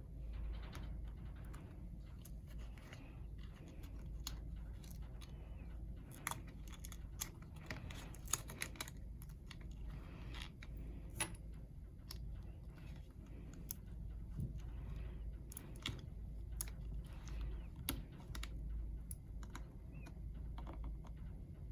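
Scattered light clicks and taps at irregular intervals, as of small laptop parts being handled during disassembly, over a low steady hum.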